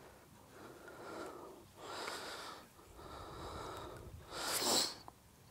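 A person breathing close to the microphone: several noisy breaths about a second apart, then a louder, sharper sniff-like breath near the end.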